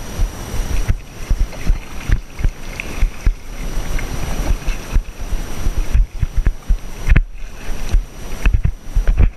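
Kayak paddle strokes splashing and sloshing in lake water, with irregular low thumping rumble on the action camera's microphone.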